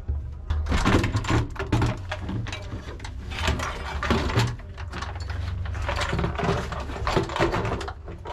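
Irregular clanks, knocks and rattles of metal access panels and tools being handled inside a BMP-1 armoured personnel carrier's hull, over a steady low hum.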